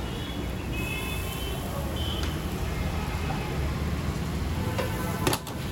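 Steady low rumble of street traffic under faint music, with one sharp knock about five seconds in.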